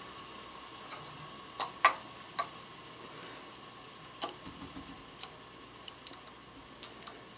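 Light metal-on-metal clicks and taps, about ten of them, irregular, the two loudest close together early on, as steel dowel pins, a steel bar and a measuring gauge are set into a milled dovetail on a workpiece held in a milling-machine vise. A faint steady hum runs underneath.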